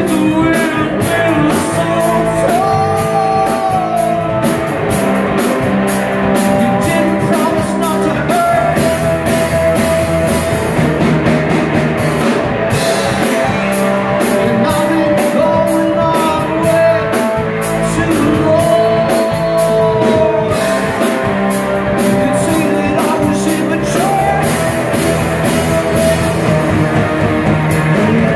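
Rock band playing live: two electric guitars, bass guitar and drum kit in a steady beat, with a lead vocal singing over it.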